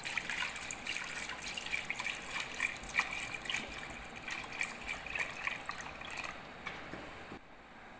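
A stream of water pouring and splashing into a stainless-steel pot of lamb pieces, filling it for boiling. It fades and stops near the end.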